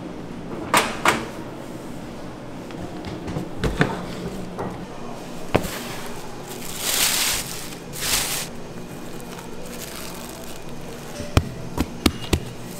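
Bakery work sounds: scattered sharp knocks and clatter of pans and tools over a steady machine hum, with two short hissing bursts in the middle.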